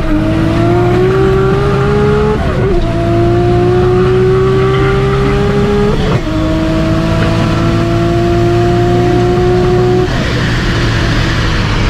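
Built single-turbo 2JZ-GTE straight-six of a Mk4 Toyota Supra at full power, heard from inside the cabin. It pulls hard through the upper gears, its pitch climbing slowly in each gear and dropping at three upshifts, about two and a half, six and ten seconds in.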